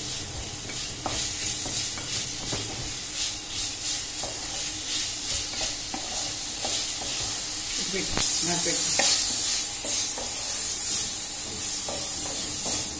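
Boneless chicken pieces sizzling in oil in a pan, stirred with a spatula in repeated scraping strokes as they are fried dry. The sizzle grows louder about eight seconds in.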